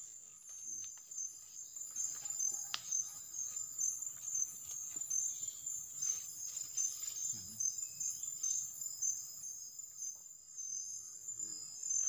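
Forest insects chirping: a steady high-pitched trill with a pulsing chirp repeating about twice a second, over faint rustling in the undergrowth.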